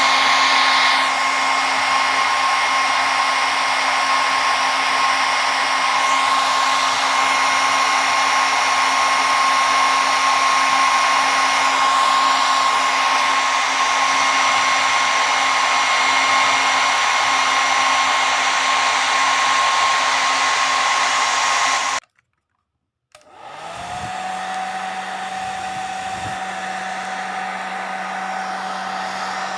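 Electric hair dryer running: a steady rushing blow with a high whine. Near the end it cuts off suddenly for about a second, then starts again quieter with a lower whine.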